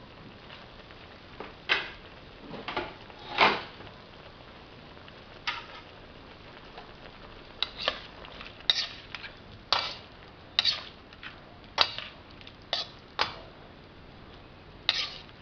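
Metal spatula scraping and clinking against a stainless steel wok while stir-frying vegetables. The strokes come irregularly, roughly one a second, and the loudest is about three and a half seconds in.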